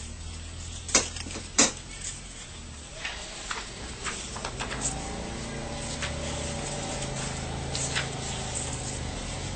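Sheets of drawing paper handled and shifted on a table: two sharp knocks about a second in, then scattered light clicks over a low steady hum.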